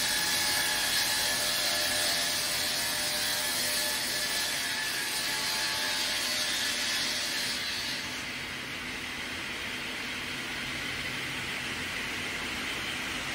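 Multi-blade log rip circular saw running and cutting through a log, a steady hissing saw noise with a held tone in it. About eight seconds in the high end of the noise drops away and it settles to a lighter steady run, as the cut finishes and the blades spin on without load.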